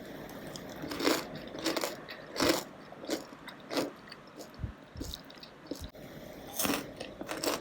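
Crisp air-fried tofu chips crunching as they are bitten and chewed: a string of separate, sharp crunches about every half second to a second, with a few dull low thumps near the middle.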